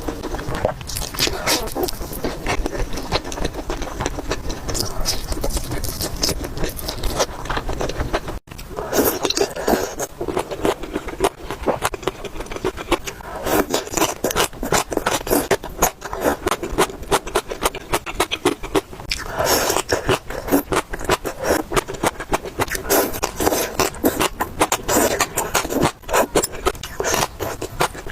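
Close-miked eating sounds: wet chewing and mouth noises from spicy noodles and dumplings, with dense, rapid clicks. There is a brief drop-out about eight seconds in.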